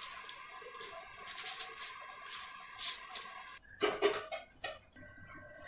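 Spoon scraping and tapping on aluminium foil while sticky candied watermelon-rind cubes are spread out: a scatter of light clicks and crinkles, with a few louder knocks about four seconds in.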